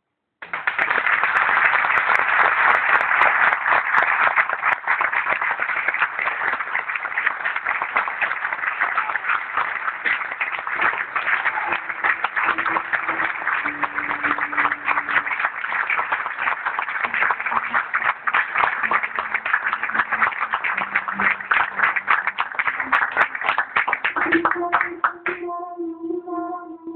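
Large theatre audience applauding, starting all at once and going on steadily. Faint music comes in under the clapping about halfway through and takes over as the applause dies away near the end.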